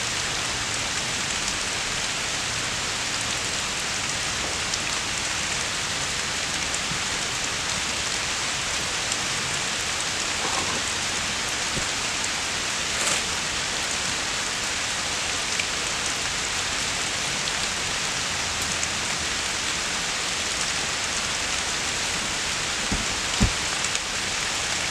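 Steady rain falling on the forest, an even hiss with a few faint drips, and a single low thump near the end.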